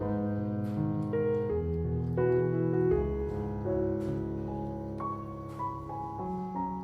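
Slow, gentle piano music: held notes and chords changing about every half second.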